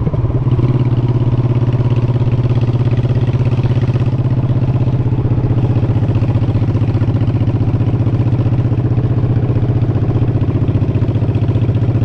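V-twin motorcycle engine running at a steady, unchanging speed, its exhaust pulsing evenly.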